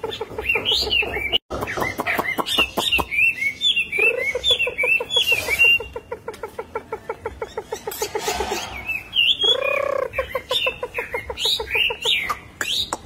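Chinese hwamei singing: long fast runs of repeated low notes, with loud, varied whistled phrases that slide up and down above them.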